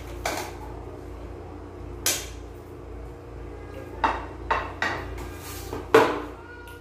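Dishes clattering: a plate and serving utensils clink and knock against a metal pot as rice is scooped onto the plate, then the plate is set down on the counter. About half a dozen separate knocks, the loudest about six seconds in, over a faint steady hum.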